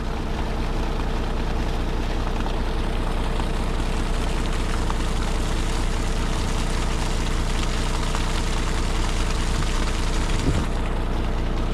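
Water rushing steadily out of an RV holding tank through the sewer hose as the tank is dumped, draining fast; the hiss thins out near the end. A steady low hum runs underneath.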